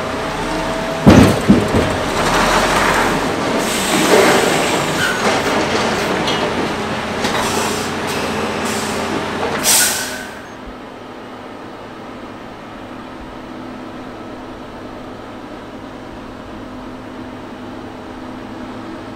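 Loud clanks of heavy steel about a second in, then grinding and screeching metal over a running diesel engine. About ten seconds in this cuts to a quieter, steady low drone of a heavy-haul truck's diesel engine.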